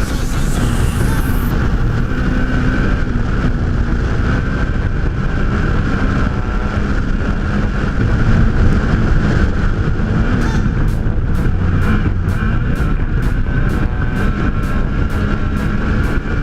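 Off-road race vehicle engine running hard and steady, mixed with rumbling drive and road noise.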